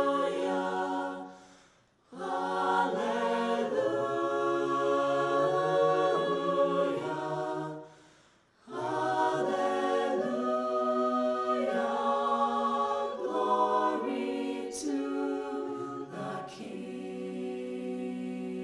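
Choir singing a cappella in harmony, held chords in phrases that stop briefly twice. Near the end the voices settle into a quieter held chord.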